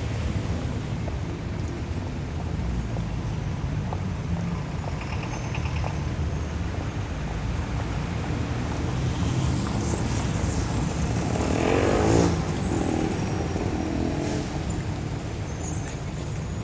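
Busy city street traffic: a steady rumble of engines and tyres, swelling louder about twelve seconds in.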